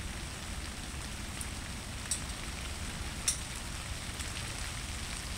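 Felt-tip marker working on a painted board: a few brief scratchy ticks over a steady hiss and low hum.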